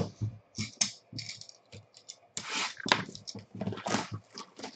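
Plastic shrink wrap being torn and pulled off a cardboard trading-card box: irregular crinkling and crackling, with taps and scrapes of hands on the box.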